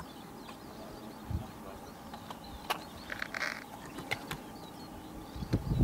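Faint outdoor ambience with birds chirping, broken by a few sharp clicks and a short hiss about three seconds in, and low thumps near the end.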